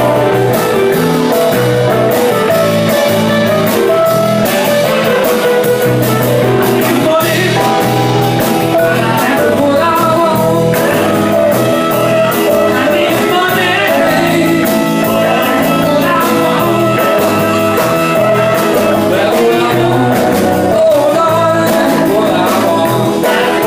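Live band playing: electric guitars, saxophone, electric piano and drums, loud and steady with a regular beat.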